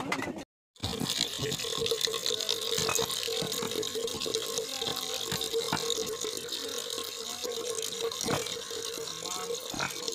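A thin stream of water from a pipe falling into a metal pot, splashing steadily, with a steady hum underneath. The sound cuts out briefly less than a second in.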